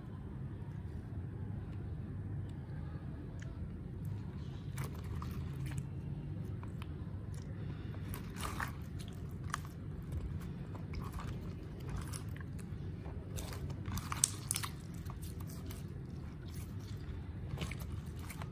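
Pink slime being stretched, folded and squeezed by hand, giving irregular wet crackling clicks that grow denser after a few seconds, over a steady low hum.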